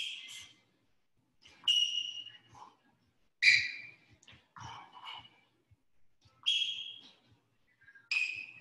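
A boxer shadowboxing throws punch combinations on a wooden floor. Short, sharp, whistle-like sounds come about every one and a half seconds, six in all, with faint light footfalls between them.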